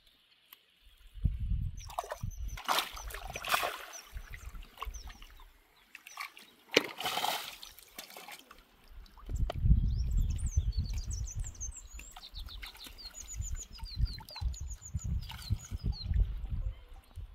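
Lake water splashing and sloshing in two bouts in the first half, as someone moves through the shallows. Small birds chirp rapidly in the second half.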